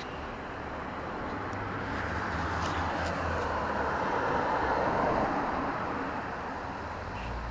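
Street traffic: a vehicle passing by, its road and tyre noise swelling to a peak about five seconds in and then fading.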